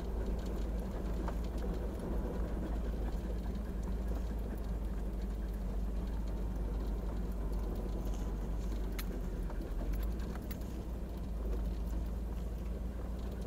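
Pickup truck driving along a sandy dirt road: a steady low rumble of tyres and engine, with wind on the microphone held outside the window and a few light ticks.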